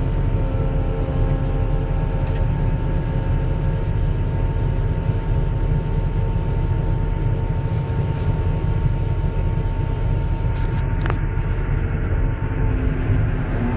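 Volvo EC480D excavator's diesel engine running steadily, heard from inside the cab, with a steady high whine over a deep rumble and a couple of brief clicks about eleven seconds in.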